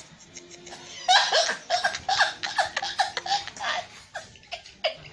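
A woman laughing in a long run of quick, high-pitched bursts, starting about a second in and trailing off near the end.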